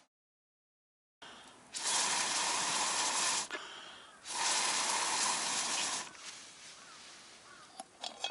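Two long, rushing blows of air into the wood fire, each lasting about a second and a half with a short pause between. They stoke the fire under the griddle and pot.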